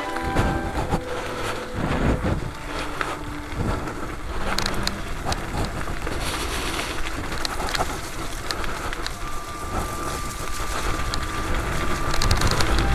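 Mountain bike rolling downhill on a gravel and dirt trail: tyres crunching over stones, the bike rattling over bumps, with wind on the microphone.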